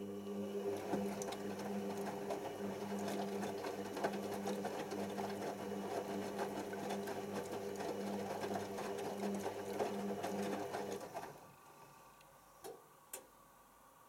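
Hoover Optima OPH714D washing machine tumbling wet laundry in its drum during the rinse: a steady motor hum with the rough, splashy sound of the load turning. It stops about eleven seconds in, followed by two light clicks.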